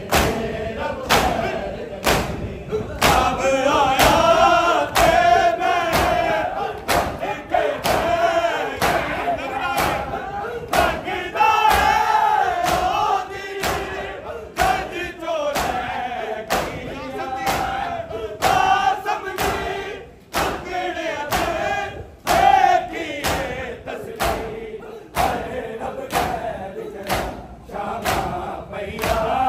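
Shia Muharram matam: a crowd of men striking their bare chests with their hands in unison, a steady rhythm of loud slaps, while many male voices chant a lament (noha) over the beat.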